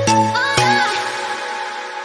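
Background music: two sharp plucked or struck notes, the second about half a second in, then a held chord that rings and slowly fades.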